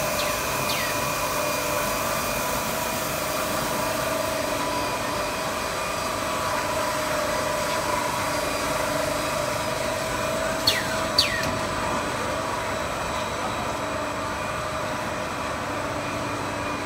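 A 5-layer, 1500 mm cast stretch film extrusion line running: a steady machine hum with several steady whining tones from its motors and rollers. Two short falling squeaks, about half a second apart, stand out a little over ten seconds in, with two fainter ones right at the start.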